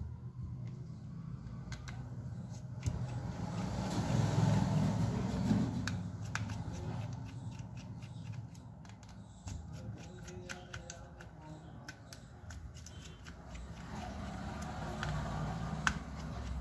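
Precision screwdriver clicking and scraping as it turns out the small screws holding a Samsung Galaxy M30s's mid-frame, with many light ticks and the rustle of the phone being handled, louder for a couple of seconds about four seconds in and again near the end.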